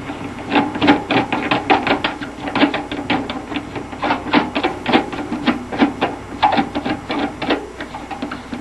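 Plastic mounting nut being turned by hand up a kitchen faucet's threaded shank, giving a quick, irregular run of clicks, several a second.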